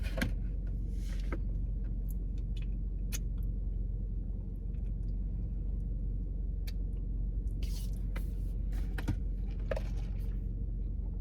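Steady low rumble of a car, heard from inside the cabin, with a few short rustles and clicks scattered through it.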